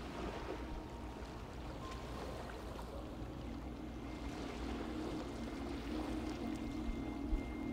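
Soft ambient background music holding low sustained notes, over a steady wash of gentle sea surf. A brief low bump comes near the end.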